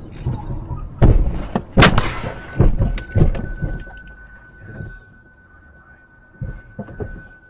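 A car's low-speed rear-end collision heard from inside the cabin: a burst of heavy thuds and knocks about a second in, the loudest near the two-second mark. A thin steady high tone then starts and keeps sounding, with a few smaller knocks near the end.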